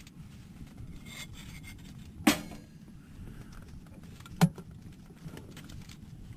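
Two sharp knocks, about two seconds apart, over a steady low rumble.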